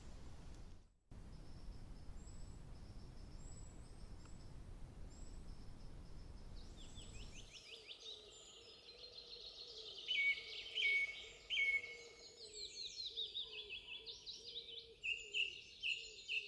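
Outdoor background hiss with faint, sparse small-bird chirps, then, from about halfway, louder and busier birdsong with many fast trills and whistles that grows louder and more varied toward the end.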